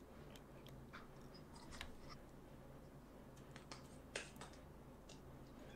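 Near silence: low room tone with a few faint, scattered clicks, the sharpest about four seconds in.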